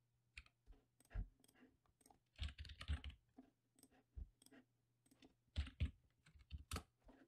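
Faint, irregular computer keyboard keystrokes and mouse-button clicks, single and in small clusters, as a word is typed into a search field and deleted with Backspace.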